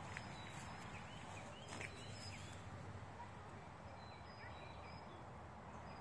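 Quiet outdoor background: faint, scattered short high chirps of distant birds over a low rumble of wind or phone handling, with a soft knock about two seconds in.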